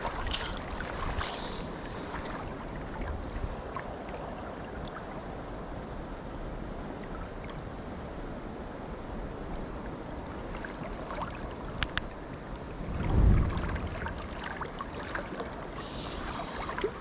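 Mountain stream rushing steadily, with a few brief hissing splashes and a low thump about thirteen seconds in.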